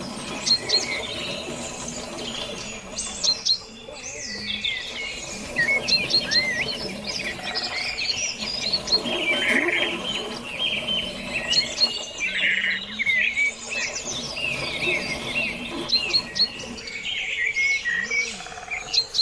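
Several wild birds chirping and calling at once, a busy run of quick, sliding high notes that overlap without a break.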